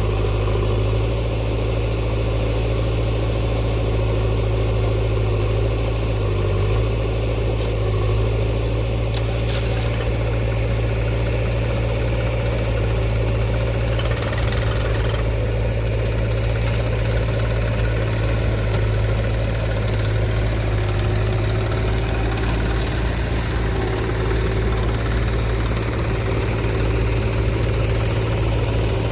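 Diesel engine of a JCB 3DX backhoe loader running steadily at work, with short bursts of higher-pitched noise about ten and fifteen seconds in.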